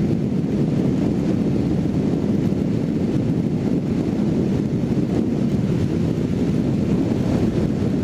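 Steady wind rush over the microphone mixed with a Kawasaki Z750 motorcycle's inline-four running at cruising speed on the highway in the rain.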